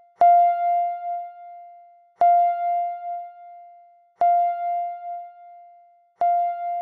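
Countdown timer's end-of-time bell alarm: a single bell-like chime struck about every two seconds, four times, each ringing out and fading before the next.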